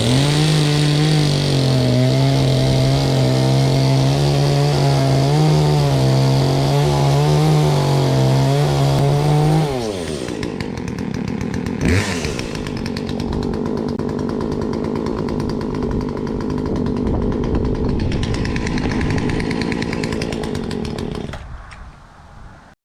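Poulan two-stroke chainsaw held at high revs for about ten seconds, then dropping to a lower, quieter idle. There is a sharp knock about two seconds later, and the engine stops shortly before the end.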